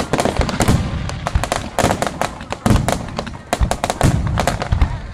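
Starmine fireworks barrage: shell bursts going off in quick succession, many sharp bangs close together with deep booms among them.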